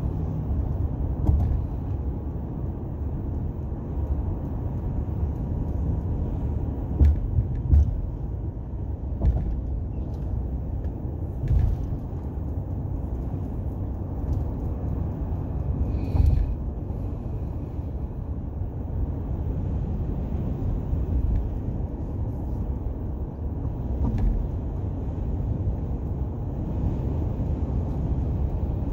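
Steady low road and engine rumble heard from inside a car cruising on a highway, with several short thumps between about seven and sixteen seconds in.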